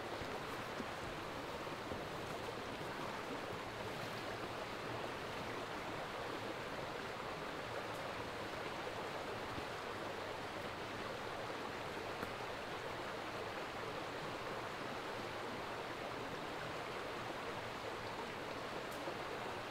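A woodland stream running: a steady, even rush of flowing water.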